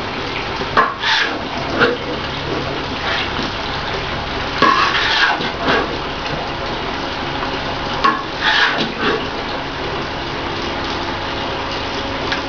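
A metal spatula scraping and turning thick, nearly dry beef rendang in a large iron wok, in irregular scrapes every second or two, over the steady rushing hiss of a gas wok burner.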